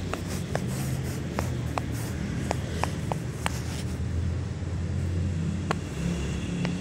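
Silicone pop-it fidget toy being pressed, its bubbles popping in short, sharp clicks at an irregular pace, about a dozen in a few seconds. A steady low rumble runs underneath.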